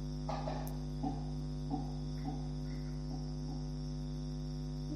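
Steady electrical mains hum with a buzzy stack of harmonics. A faint, distant voice comes through in a few short snatches during the first three and a half seconds.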